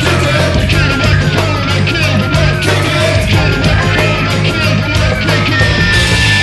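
Loud crossover rock music with a heavy, driving band sound; a high note is held from about five and a half seconds in.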